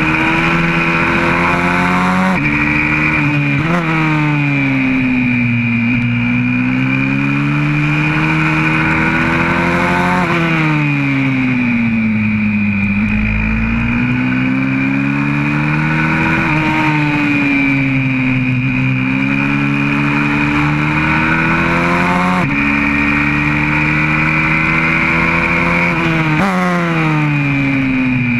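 YCF 125cc pit bike's single-cylinder four-stroke engine at racing revs, its pitch climbing under throttle, then falling, over and over. Some drops are sudden, about every few seconds, and some are slow sinks.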